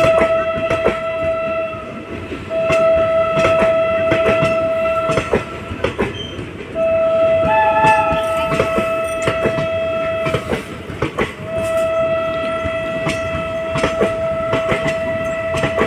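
Passenger train coaches rolling past, their wheels clicking over the rail joints. A train horn sounds four long blasts, one after another, with short breaks between them.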